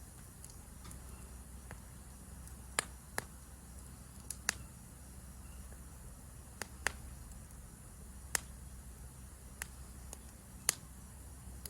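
Wood campfire crackling: sharp single pops and snaps, about ten of them at irregular intervals, over a steady low rumble and a faint high hiss.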